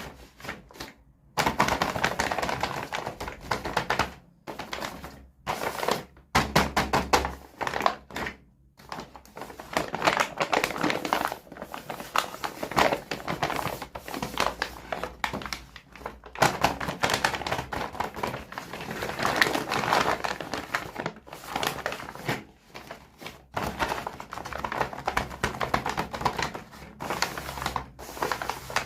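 Plastic toy packaging being handled and opened: rapid clicking and crackling in bursts, broken by short pauses.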